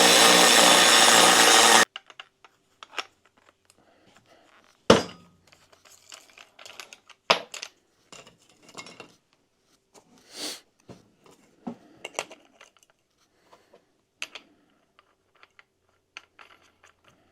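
Angle grinder with a worn cutoff wheel cutting steel plate, stopping abruptly about two seconds in. After it, scattered metallic clinks and knocks of steel pieces and tools being handled, the loudest a sharp knock about five seconds in.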